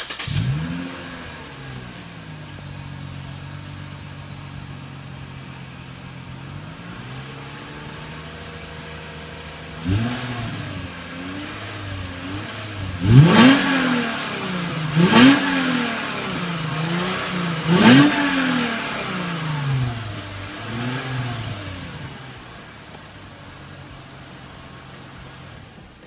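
Lexus GS350's 3.5-litre V6 through a JoeZ PTS true-dual axle-back performance exhaust. It flares as it catches at the start, then settles into a steady idle. About ten seconds in it is revved in a series of quick throttle blips, the sharpest three about 13, 15 and 18 seconds in, before dropping back to idle.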